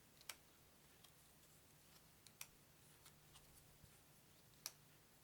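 Near silence with a faint low hum, broken by a few soft clicks of playing cards being handled and laid down, three of them sharper.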